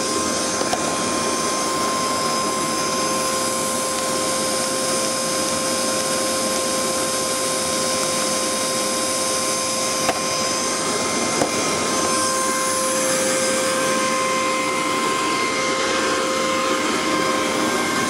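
An air blower on a diesel heater's exhaust heat exchanger runs with a steady whir and a constant hum. The diesel heater runs alongside it.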